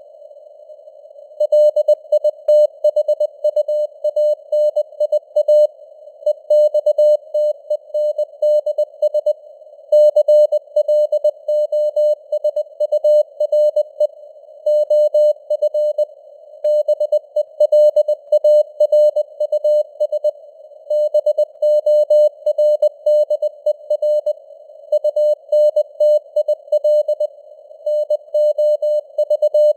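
Morse code (CW) sent at 20 words per minute: a single mid-pitched tone keyed on and off in dots and dashes over a faint band of simulated radio-receiver hiss, starting after a pause of about a second and a half.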